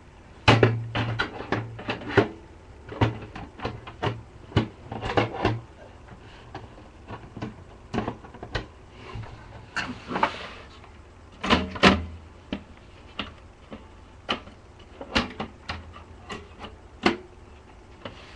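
Irregular clicks, taps and knocks of computer parts being handled and pushed into place inside a desktop computer case.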